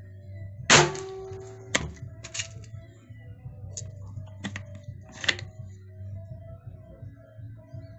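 Dipo Classic Hunting PCP air rifle firing one shot about a second in: a sharp crack with a brief ringing tone. Several lighter clicks follow over the next few seconds as the single-shot action is worked.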